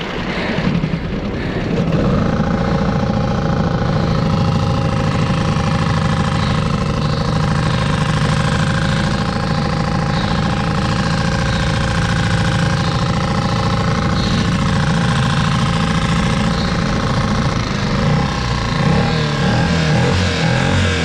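An engine rises in pitch and loudness over the first couple of seconds, then runs steadily at a constant speed, with the pitch wavering slightly near the end.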